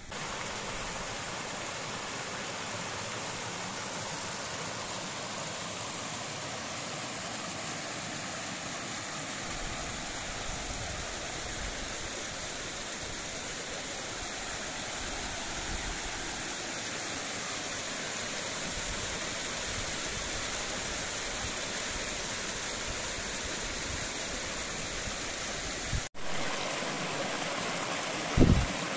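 Steady rush of flowing water from a stream or waterfall, with a single thump near the end.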